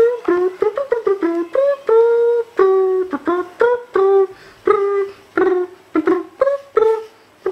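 Short, high-pitched voice sounds in quick succession, a couple a second, each a brief note that rises or falls in pitch, many starting with a soft click.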